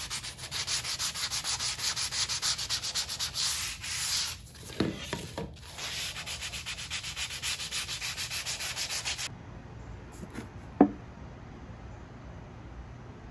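Hand sanding a mahogany picture frame with folded sandpaper: quick, evenly repeated back-and-forth strokes, with a short break about four and a half seconds in. The sanding stops about nine seconds in, and about a second and a half later comes a single sharp click, the loudest sound.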